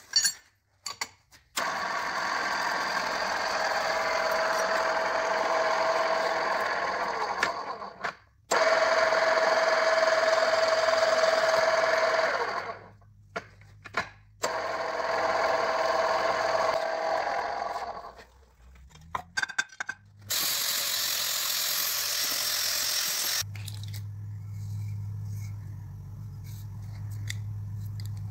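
Pillar drill with a hole saw cutting through a steel plate held in a vise. It runs in three stretches of several seconds with short pauses between, a steady ringing tone over the grinding of the cut. Near the end comes a loud hiss of about three seconds, then a low steady hum.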